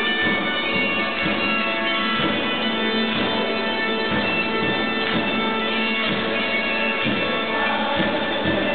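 Bagpipe music: a tune played over the pipes' steady drone, with football supporters singing a chant over it.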